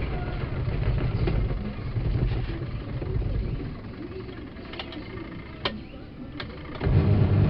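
Washing machine motor humming as it runs. The hum dies down for about two seconds, with two sharp clicks, then starts up again louder near the end.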